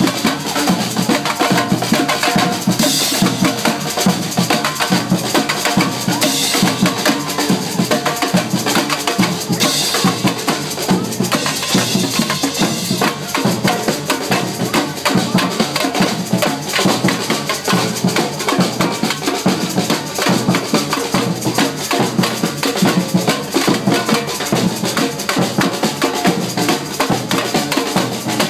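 Live samba street percussion: several drums, including a big strap-hung bass drum, beaten together in a fast, steady rhythm.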